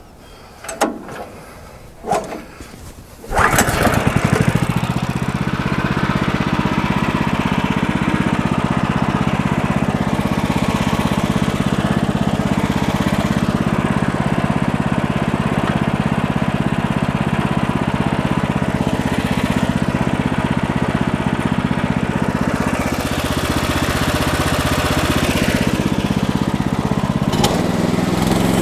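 Small gasoline engine of a Woodland Mills HM-126 bandsaw mill starting about three seconds in, after a few knocks, then running steadily at high speed.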